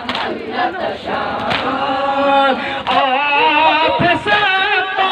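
A crowd of men and boys singing an Urdu noha, a Shia lament, in unison, their voices wavering on long held notes from about three seconds in. Sharp slaps of matam, hands beating chests, keep time about every one and a half seconds.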